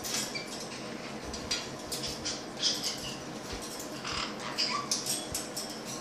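Paper towel crinkling and rustling in short irregular bursts as white-bellied caiques pull and bite at it inside a wire cage.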